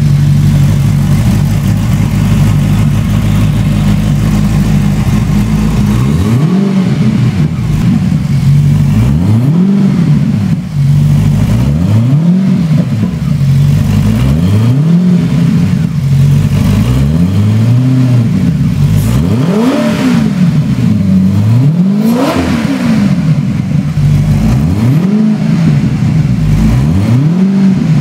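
Lazareth LM 847's Maserati 4.7-litre V8 idling steadily, then from about six seconds in revved again and again in quick throttle blips, each rising and falling in pitch, one every one to two seconds.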